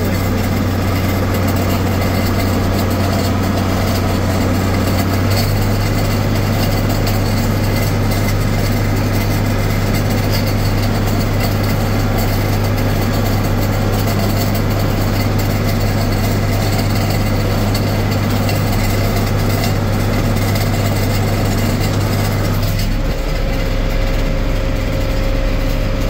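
John Deere 4255 tractor's six-cylinder diesel running steadily, heard from inside the cab, while a John Deere 435 round baler behind it picks up and rolls hay. The engine note shifts slightly about five seconds in and again near the end.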